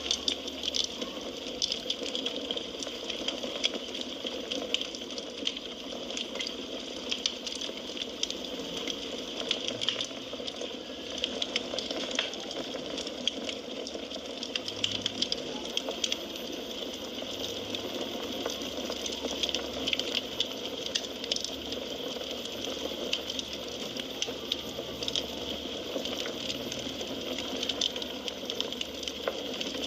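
Wood fire burning in a fireplace: a steady hiss with frequent small crackles and pops of burning firewood.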